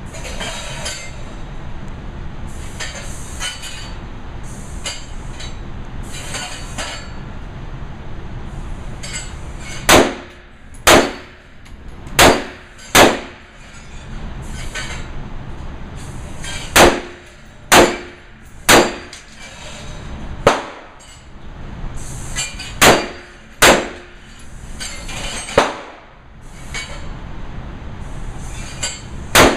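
Sig Sauer 556 Classic rifle firing 5.56 mm frangible rounds in single aimed shots. About a dozen sharp shots come in short strings roughly a second apart, beginning about a third of the way in, several with a brief ring after them. Before the first shot there is only steady background noise.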